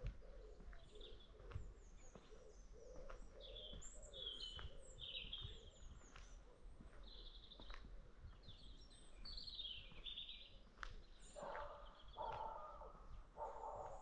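Birds calling and singing: high chirps and twitters throughout, with a low cooing note repeated over the first half. A few louder, rougher animal calls come near the end.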